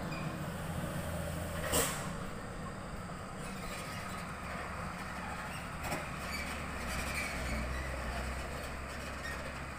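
Loaded dump truck's diesel engine running steadily at low revs, with a short burst of hiss about two seconds in and a light knock about six seconds in.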